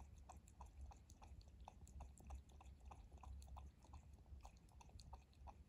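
Bengal cat lapping water from a drinking glass: faint, quick wet clicks of the tongue, about four a second.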